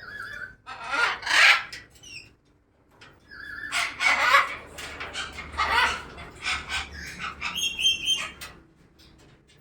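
Birds giving repeated harsh squawking calls in a series of loud bursts, with short higher whistled notes between them and a brief pause about two and a half seconds in.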